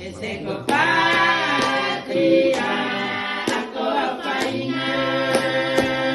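Group of women's voices singing together unaccompanied, with sharp hand claps roughly once a second.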